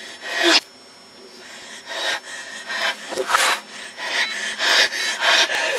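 Backwards-played audio of a boy's hard breathing and vocal noises: rough hissing swells, one loud one at the start, then a quieter stretch, then more frequent swells growing louder toward the end.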